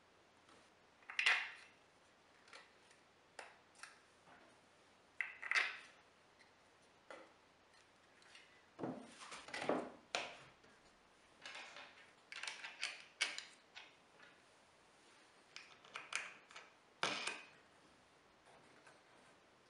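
Scattered clinks, clicks and knocks of metal bolts, washers and wing nuts and plywood parts being handled and tightened by hand on a plywood push block jig. The sounds come irregularly, some in quick clusters.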